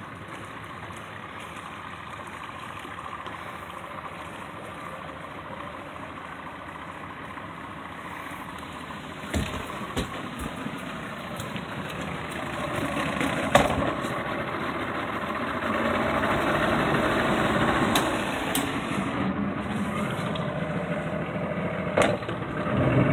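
Motor boat's engine running steadily, growing louder about halfway through, with several sharp knocks.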